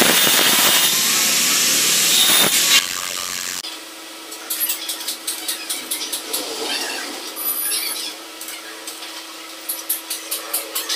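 Loud, steady power-tool noise for about the first three and a half seconds. Then stick (arc) welding on steel takes over: quick, irregular crackling and spitting pops over a steady electrical hum.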